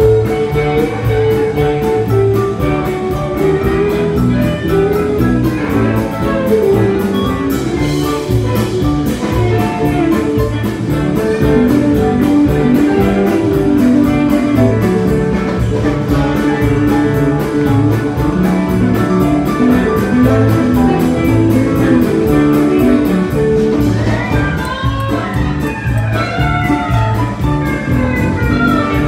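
Live country-rock band playing an instrumental passage: electric guitars, bowed fiddle, pedal steel and a drum kit keeping a steady beat. Sliding notes rise and fall over it near the end.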